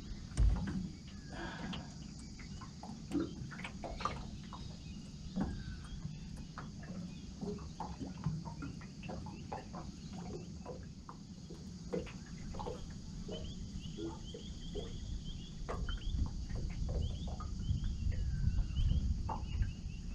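Outdoor waterside ambience: a steady high insect buzz under scattered bird chirps and small clicks, with a low rumble beneath. A single thump sounds about half a second in, and a run of quick high chirps comes near the end.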